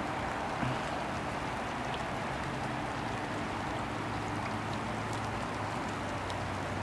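Steady rain falling, with faint scattered ticks of raindrops and a low steady hum underneath.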